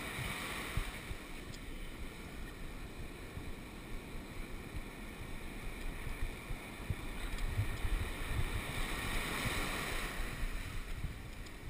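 Ocean surf washing up the beach, swelling as white water rushes in at the start and again near the end, with wind buffeting the microphone in low, irregular rumbles.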